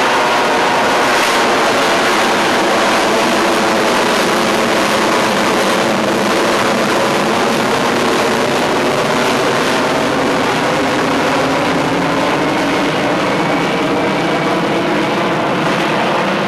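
F-22 Raptor's twin Pratt & Whitney F119 afterburning turbofans running at high power in a flyby: a loud, steady jet noise that eases slightly near the end.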